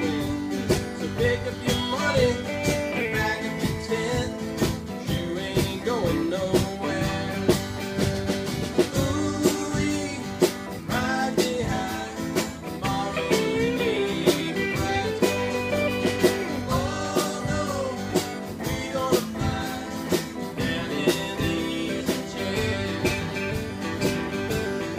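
A live band jamming: several electric guitars played through amplifiers over a steady beat, with bent, gliding notes in a lead line.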